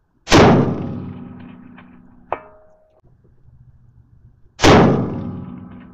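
Two .308 Winchester rifle shots about four seconds apart, each a loud crack that echoes away over a couple of seconds. About two seconds after each shot, a faint short ping comes back from the steel target about 500 yards downrange as the bullet strikes it.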